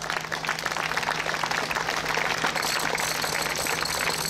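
Crowd applauding: the claps thicken quickly into dense, steady clapping, with a thin high steady tone joining about halfway through.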